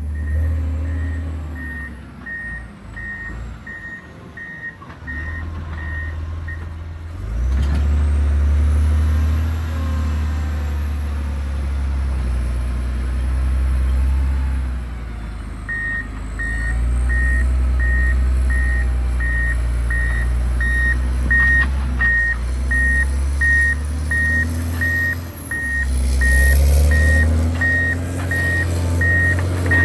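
John Deere 670 GP motor grader's diesel engine running, with its back-up alarm beeping about twice a second while it reverses. The beeping stops about six seconds in as the engine pulls harder, and starts again a little past halfway.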